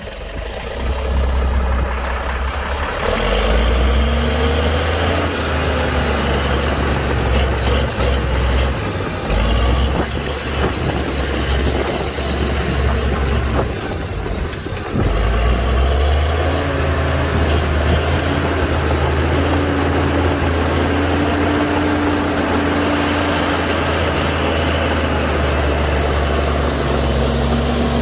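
Heavy diesel earthmoving machinery running under load, with a steady deep engine note that eases off briefly about halfway through. A thin high whine rises and falls over the top.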